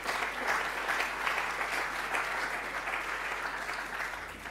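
Audience applauding, a dense patter of many hands clapping that tails off near the end.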